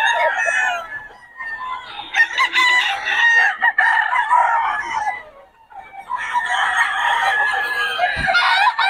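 Roosters crowing, several calls overlapping, with a short lull about five seconds in; a brief low thump near the end.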